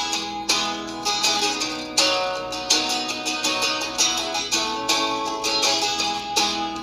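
Instrumental break in a country song: plucked acoustic strings picking notes over a steady beat.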